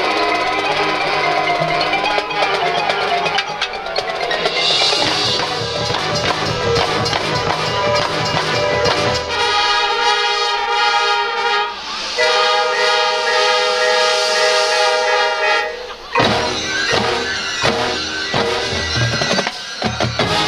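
High school marching band playing: brass over drums, then two long held brass chords without the low drums, and sharp percussion hits near the end.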